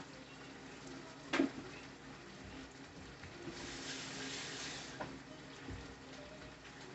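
Quiet kitchen sounds during cooking: one sharp knock of a utensil about a second and a half in, then a short hiss lasting about a second past the middle, with a few small clicks and a soft thump, over a faint low hum.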